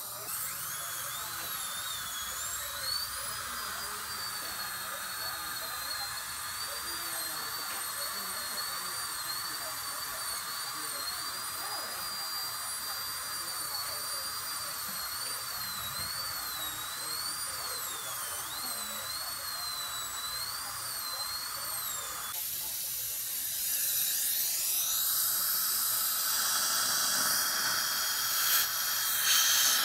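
High-speed dental drill whining at a high pitch that wavers up and down as it cuts the tooth for a filling, over a steady hiss. The whine stops suddenly about 22 seconds in, and a louder, even hiss follows.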